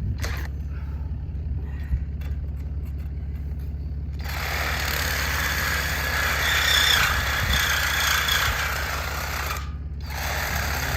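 Reciprocating saw (Sawzall) cutting through a metal hay ring to free a trapped heifer. It starts about four seconds in, stops abruptly near the end and starts again, over the steady low hum of an idling vehicle engine.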